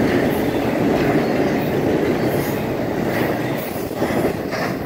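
Double-stack intermodal well cars rolling past on steel rails: a loud, steady rumble with wheel clatter and a few brief high wheel squeals. It begins to die away near the end as the last car goes by.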